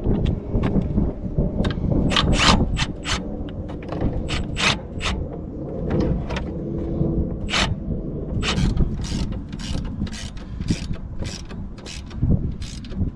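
Hand ratchet wrench clicking in short bursts of back-strokes, irregular at first and then a steadier two to three clicks a second in the second half.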